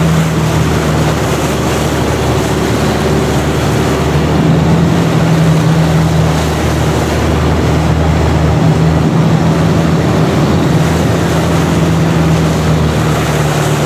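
Long-tail boat's engine running steadily at cruising speed, loud and close, over the rush of water past the moving boat.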